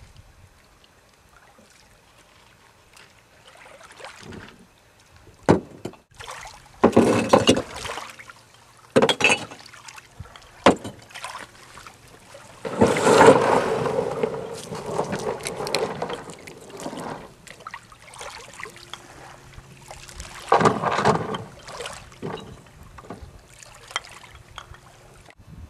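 Irregular crunches and scrapes on beach pebbles around a small rowboat, in separate bursts, with one longer scrape lasting about three seconds near the middle.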